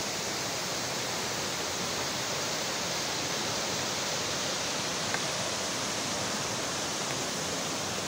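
A fast, rocky stream rushing over and between boulders: a steady, even rush of water.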